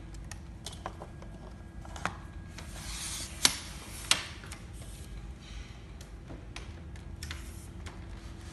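Aluminium pole of a portable height-measuring scale being pushed into its plastic base socket and handled: scattered rubbing and small clicks, with two sharp clicks about three and a half and four seconds in.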